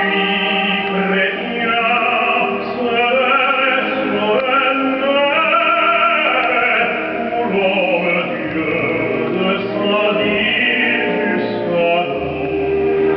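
Classical vocal music in an operatic style, with singing voices over instruments, playing from a CD through hi-fi loudspeakers.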